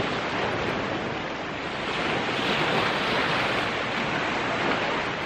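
Sea surf washing on a beach, a steady rush that swells a little in the middle.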